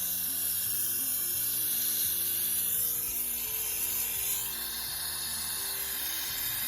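Jeweller's soldering torch flame hissing and howling steadily against the work. Soft background music with held low notes plays underneath.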